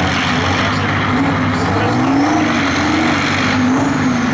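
Detroit Diesel engine of a custom 700 hp pulling tractor running hard under heavy load, its pitch wavering up and down as it strains against the opposing truck in a tug of war.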